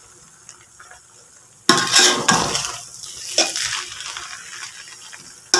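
A metal spoon stirring and scraping through cooked rice in a metal pot. It is quiet with light ticks at first, then about a second and a half in there is a loud scrape lasting about a second, followed by softer scrapes and clinks, and another loud scrape at the very end.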